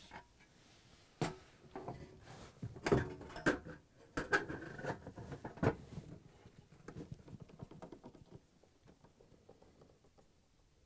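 Metal dishwasher base panel being fitted under the door: a string of sharp knocks and clicks with some scraping as it is handled and pushed into place, fading to a few faint taps.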